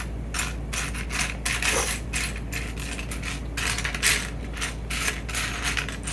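Small plastic Lego pieces clicking and rattling against each other as hands sift through a loose pile, in quick, irregular clicks.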